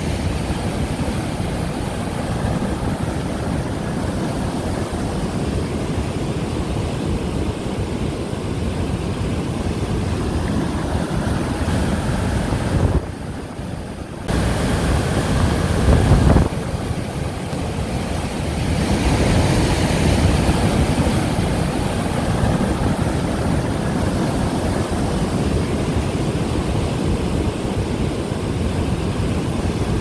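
Wind buffeting the microphone over the steady rush of a river running through rocky falls and rapids, with a short quieter break about thirteen seconds in.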